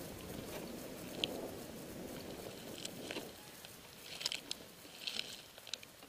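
Footsteps moving slowly through dry grass and weeds: a soft rustling for the first few seconds, then scattered light crackles and ticks of dry stalks and debris underfoot.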